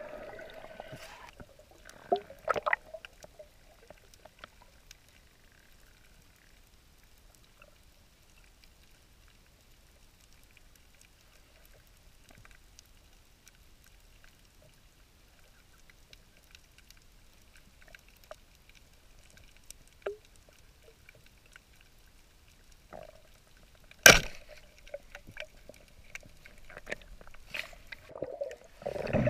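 Muffled underwater sound of a free dive, heard through a camera's waterproof housing: mostly a faint hush, with a few scattered clicks and one sharp, loud crack about 24 seconds in. Water sloshing and bubbling picks up in the last couple of seconds.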